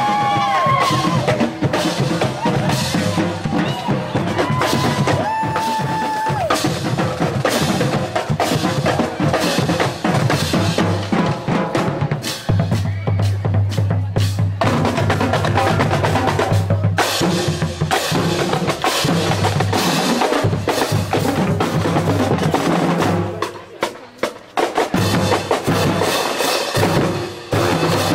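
Marching band drumline playing: snare drums, bass drums and crash cymbals in a steady beat, with a few held brass notes over it in the first several seconds. The drumming drops off briefly about 24 seconds in.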